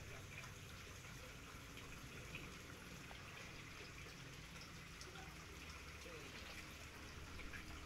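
Faint trickling and sloshing of water in a small concrete fish pond, with a few small ticks.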